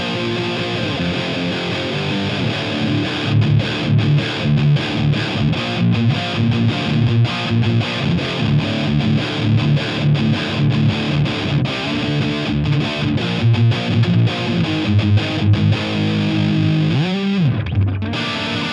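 Distorted electric guitar through a London City Bulldog valve amp head with four EL34 power tubes. Held chords give way, about three seconds in, to fast staccato riffing, with a slide in pitch and a short break near the end.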